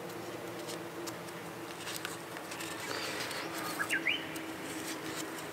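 Faint rustling and ticking of paper strips being twisted by hand into paper twine, over a steady faint drone. A few short rising bird chirps come about four seconds in.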